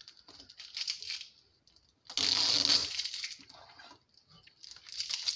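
Plastic clicks and rattles, with a loud scraping rustle lasting almost a second from about two seconds in, as a TV's plastic front bezel is handled and fitted over the screen panel.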